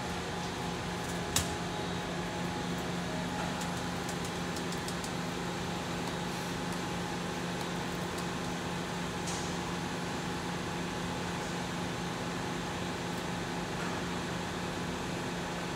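Steady hum of a powered-on Okuma MacTurn 350-W CNC turning-milling center standing at idle, with a low steady tone. There is a sharp click about a second and a half in, and a few light ticks a few seconds later.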